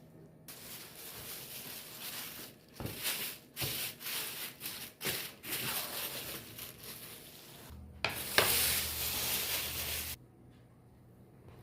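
Kitchen food-preparation sounds: a run of irregular rubbing and scraping strokes, then a louder steady rush of noise with a low hum for about two seconds, which cuts off near the end.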